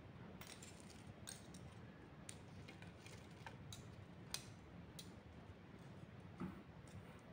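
Faint, scattered metallic clicks and taps of stainless-steel tongs against a wire skimmer basket and a ceramic plate as small roasted potatoes are set down, the sharpest click about four seconds in and a soft thump about six and a half seconds in.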